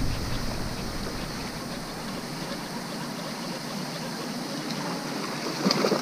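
Steady rushing of water from a pond fountain, then near the end a sharp splash as a fish strikes a hollow-body frog lure on the surface.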